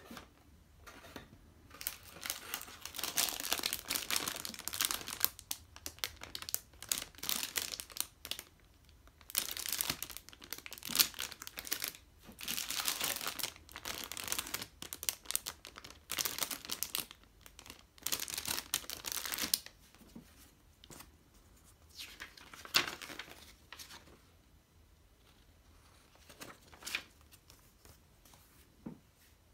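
Clear plastic bags of model-kit runners crinkling and rustling as hands handle them, in irregular bursts with a few sharp crackles. The rustling thins out and gets quieter in the last few seconds as a paper instruction sheet is handled.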